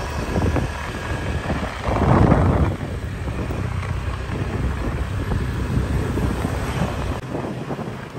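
Wind rushing over the microphone of a rider on a moving motor scooter, with the scooter's engine running underneath; the wind is strongest about two seconds in.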